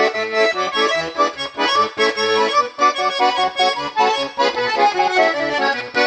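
Vyatka garmon (Russian button accordion) played at a brisk pace in its high register, with the left-hand bass and chord buttons pulsing underneath. The instrument is freshly repaired and retuned.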